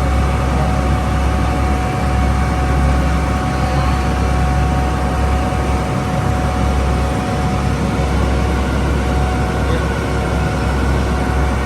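Tour boat engine running steadily while underway: an even, loud low drone with a thin steady whine over it.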